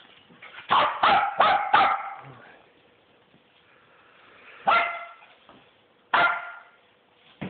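Miniature dachshunds barking: a quick run of four barks about a second in, then two single barks a second and a half apart near the end.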